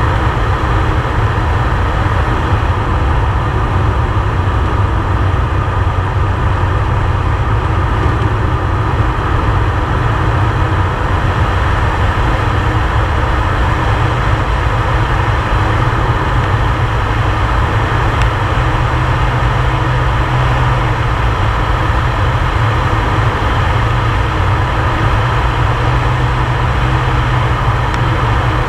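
Air Tractor 502XP crop duster's turboprop engine and propeller running steadily in low level flight, heard inside the cockpit as a loud, unbroken deep rumble under a higher hum.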